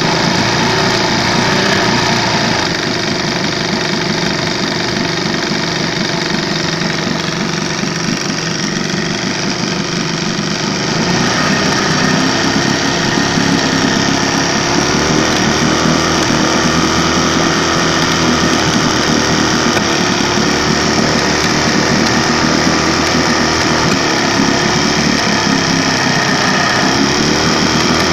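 Evinrude 20 hp outboard motor running, picking up a little in speed and loudness about eleven seconds in and easing briefly near the end. It is the motor the owner says 'sneezes', that is, coughs and misfires.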